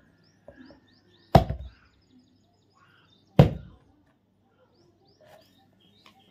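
Blade chopping into a coconut: two heavy blows about two seconds apart, with a couple of lighter knocks before them.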